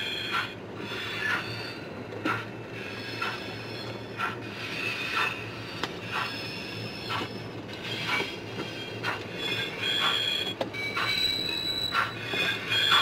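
O gauge model railway wagons rolling slowly along the track. Their wheels click over rail joints about once a second, with short high squeals from the wheels between the clicks.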